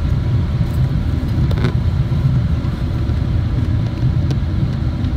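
Steady low rumble of engine and airflow noise inside the cabin of a Boeing 777-300 airliner in flight, heard from a window seat by the wing.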